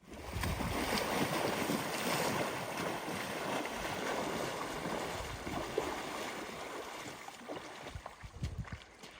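Wind buffeting the microphone over a steady rush of noise, starting suddenly at a cut and fading gradually toward the end.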